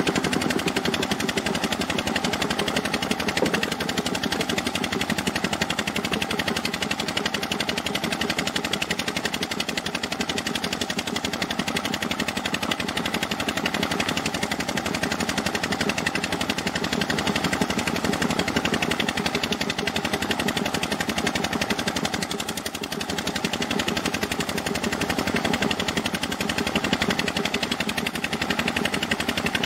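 Gravel and water slurry pouring from a pipe through a screen into a steel dump-truck bed, a steady rapid rattling clatter, with an engine running underneath.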